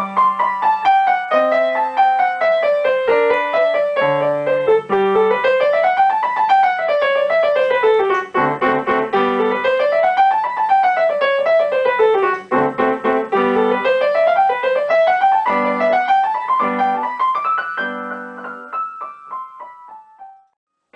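Background music: a solo piano étude from a live recording, with fast runs of notes rising and falling in waves over bass notes. It fades out near the end.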